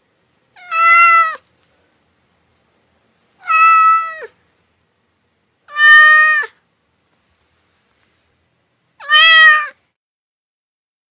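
A domestic cat meowing four times, each meow short and even in pitch, a few seconds apart.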